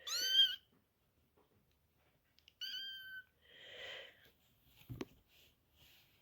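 Maine Coon cat vocalising: a loud meow right at the start, then a short high-pitched chirp about two and a half seconds in. A soft breathy sound follows, and there is a single knock near the end.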